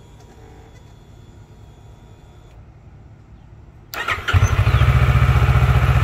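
2012 Kawasaki Ninja 650's parallel-twin engine started on the push button: after a few seconds of faint hum, the starter cranks briefly about four seconds in and the engine catches at once, settling into a steady, evenly pulsing idle. The push-button start is working again after its corroded switch contact points were filed clean.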